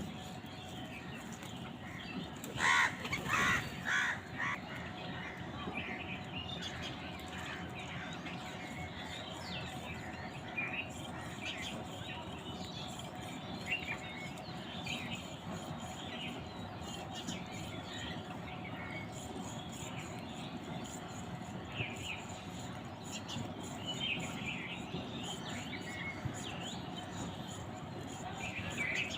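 Crows calling: a run of about four loud caws about three seconds in, with many small bird chirps going on throughout.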